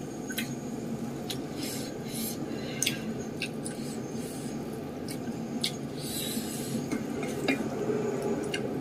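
Food being handled with bare fingers: tofu and fried egg squished and pulled through sambal in a stone mortar, giving soft squelches, brief crackles and scattered small clicks.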